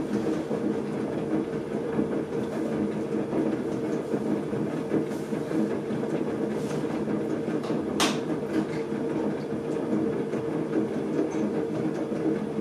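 Electric potter's wheel running steadily with a motor hum, while a wet sponge rubs against the spinning clay mug. A single sharp click about eight seconds in.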